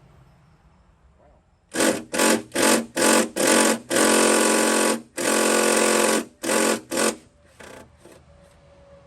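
A power tool run in a string of short, sharply cut bursts, about nine in five seconds, the longest about a second each, with two faint short bursts after them.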